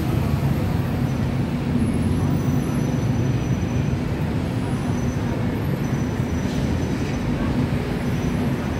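Steady street traffic noise from a busy city road, with the low, even hum of vehicle engines running.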